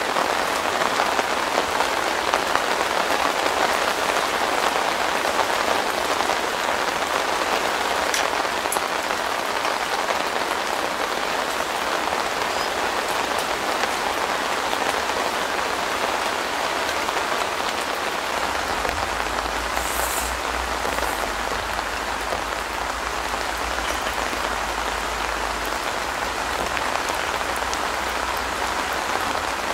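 Steady rain falling on the fabric roof of a tent shelter, heard from underneath it: a dense, even hiss that does not let up.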